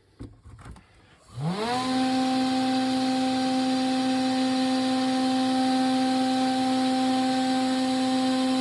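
Cheap CNC router spindle motor starting up: after a few faint clicks it spins up with a quickly rising whine about a second in, then runs at a steady high-pitched whine over a hiss.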